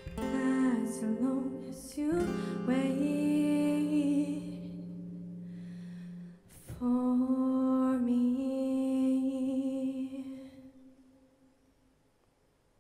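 A woman singing to her own acoustic guitar: sung phrases over ringing strummed chords, a fresh strum about six and a half seconds in, then one long held note that fades out near the end as the song closes.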